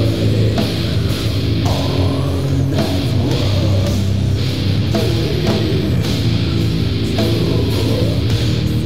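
Sludge/doom metal recording: heavily distorted electric guitars and bass over a slow, heavy beat, with a sharp drum or cymbal hit about once a second.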